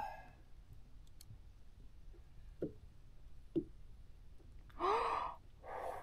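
Two loud breathy exhales, like sighs, near the end, the first carrying a short rising vocal note, from a man hauling a fish up by hand on the line. Before them come two faint short squeaks.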